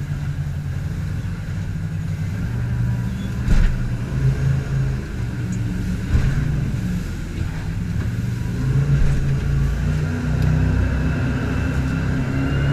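Jet boat's inboard engine running under way, its pitch stepping up and down as the revs change, with two brief rushes of noise about three and a half and six seconds in.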